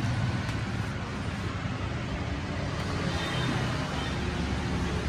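Steady background rumble and hiss with no distinct event, the low rumble strongest.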